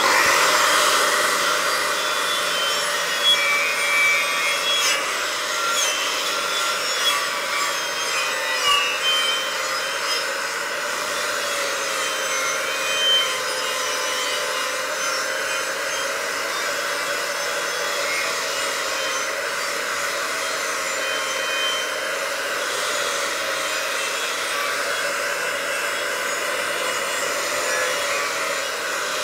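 Angle grinder fitted with a wire brush, starting up and then scrubbing steadily over heavy mill scale on a steel beam, its motor whine wavering slightly as the pressure changes. The brush only polishes the hard scale and does not break through to bare metal.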